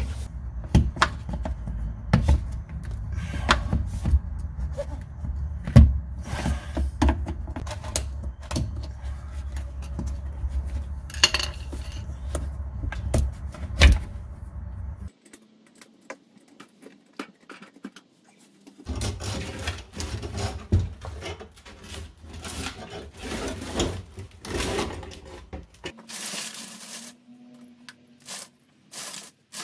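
Hands working plastic fuel and evap line connectors and clips loose on a fuel tank: scattered clicks, taps and scrapes over a low rumble that drops out for a few seconds in the middle.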